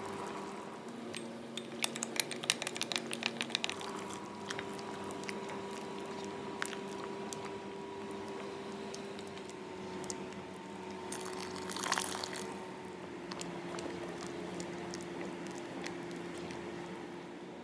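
Thick soup being stirred with a spoon in a metal pot, with wet sloshing and a quick run of clicks about two seconds in, over a steady hum.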